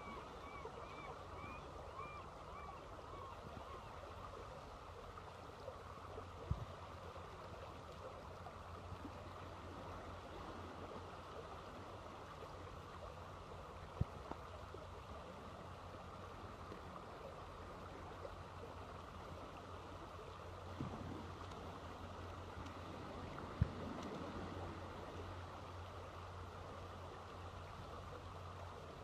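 Faint, steady wash of water on a stony shore, with a few sharp clicks scattered through it.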